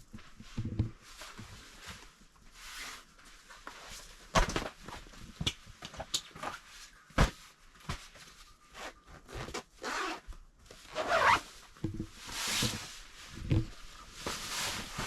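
Camping gear being handled: irregular rustling and swishing, with several sharp knocks.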